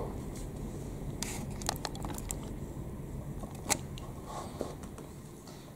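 A few light clicks and taps of hard plastic parts of a toy RC vehicle chassis being handled, over a low hum.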